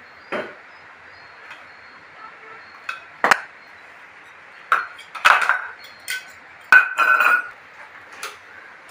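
Stainless-steel storage containers clinking and knocking against each other and the steel trolley as they are lifted off and set down: a handful of separate metallic knocks, some ringing briefly, the loudest bunched together about five to seven seconds in.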